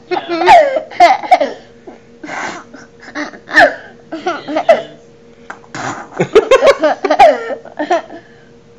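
A baby laughing in several bursts of high-pitched giggles, with short pauses between them.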